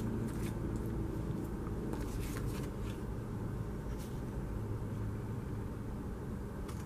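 Old glue-gunked scissors snipping through cardstock: a few faint, sharp snips, most of them in the first four seconds, over a steady low hum.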